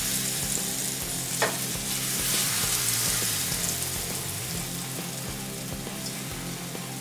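Eggless besan omelette batter sizzling in an oiled pan on a low flame as it is poured and spread with a steel ladle. A brief falling squeak comes about a second and a half in.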